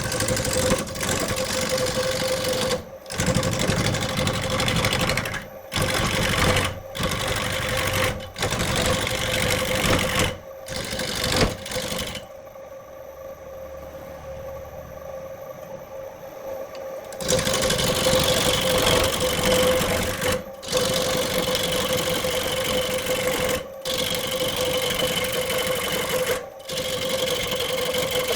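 An electric woodworking power tool running with a steady motor hum and a rough grinding noise, in short stretches broken by abrupt cuts; quieter for a few seconds in the middle.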